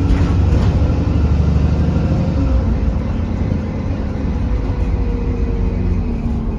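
London bus running on the road, heard from on board: a steady low engine drone with road and tyre noise. A faint high tone glides slowly down partway through.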